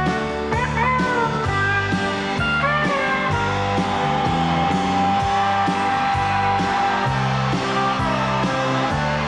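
Live country band playing an instrumental passage with no singing: guitar lines that bend in pitch over bass and a steady beat.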